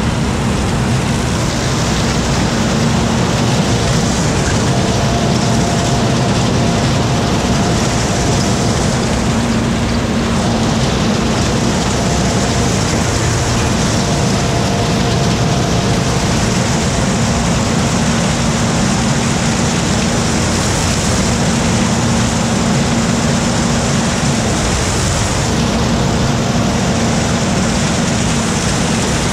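John Deere 3350 tractor and its trailed Zmaj 222 corn picker running steadily while picking corn, engine and picker machinery loud and close.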